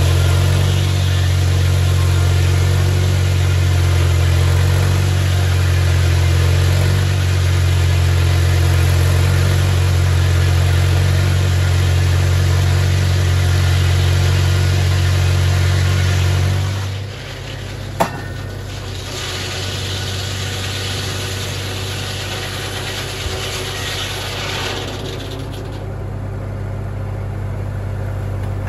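Straight-piped Farmall Super M four-cylinder engine running hard under load, driving a sawmill blade through a log with a hiss of cutting noise over the engine's deep drone. About seventeen seconds in the heavy note drops as the load comes off, a single sharp knock follows a second later, and the engine runs on lighter.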